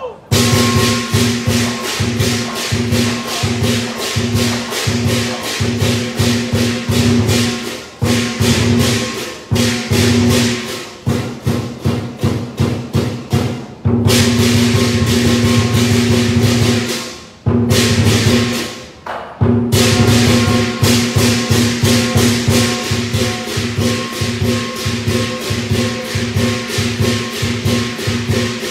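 Traditional lion dance percussion playing for a pole routine: a big lion dance drum beaten in fast, even strokes with clashing cymbals and a ringing gong. The rhythm breaks off briefly a few times and starts again.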